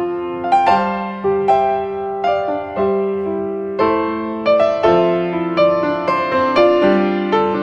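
Piano music: a calm melody of struck notes with chords beneath, each note ringing and fading.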